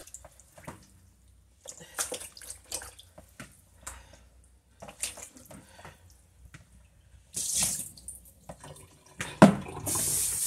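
Turkey wings being dipped by hand in a basin of salt water and lifted out, with splashing, sloshing and dripping in short bouts. Near the end a steady pour of water begins.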